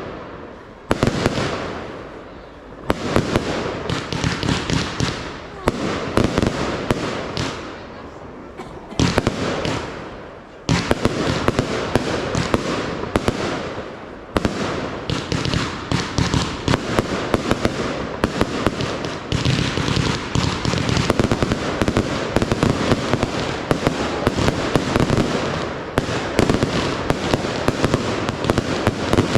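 A fireworks display: bangs from shell bursts with crackling. The gaps between volleys close up about ten seconds in, and it becomes a dense, continuous barrage.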